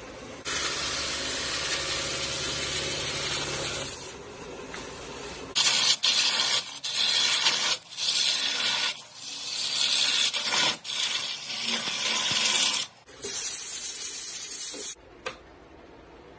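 Wood lathe turning a bowl, a gouge cutting the spinning wood with a steady hiss over a low motor hum, then a string of shorter hissing cuts broken by brief gaps, and a single click near the end.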